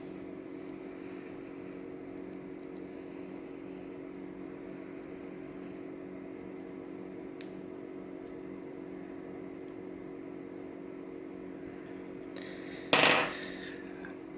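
A steady low machine hum, like a fan or motor running, with a few faint small clicks of handling. Near the end comes one brief loud metallic clatter.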